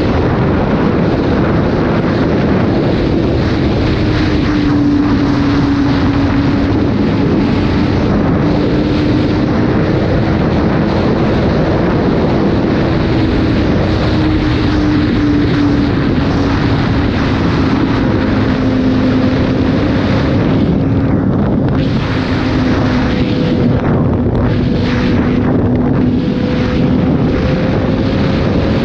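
Sport motorcycle engine running at a steady cruise, heard from the rider's seat under heavy wind noise; the engine note holds nearly level, easing slightly lower over the stretch.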